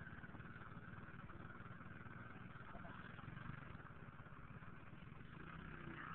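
Small single-cylinder engines of two mini ATVs, a Honda ATC 70 and a Yamaha 4-Zinger, running steadily at low speed with a fast, even putter.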